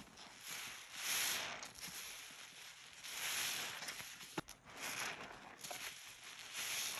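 Soapy sponge squeezed repeatedly in rubber-gloved hands: soft squishing hiss that swells and fades about every one and a half to two seconds, with one sharp click a little past the middle.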